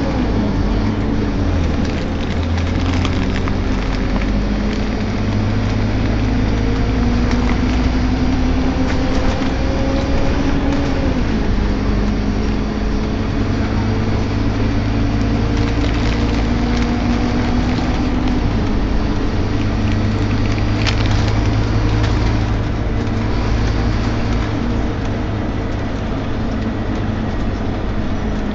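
Scania K230UB single-decker bus heard from inside the saloon while under way, its engine and driveline groaning. The pitch slowly climbs, then drops at a gear change about a third of the way through and again about two-thirds through, with a few sharp rattles from the body.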